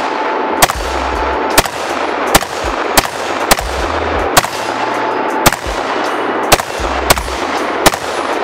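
Semi-automatic gunfire from an AR-15 pistol with a 10.5-inch barrel and muzzle compensator: about ten single shots at an uneven pace of roughly one a second.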